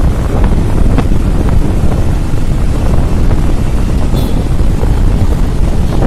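Wind buffeting the microphone of a moving motorcycle, a loud, steady rumble with the engine and road noise under it.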